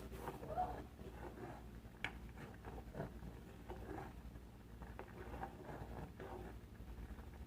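Faint, scattered taps and clicks of cooking utensils and dishes being handled, with one sharper click about two seconds in, over a steady low hum.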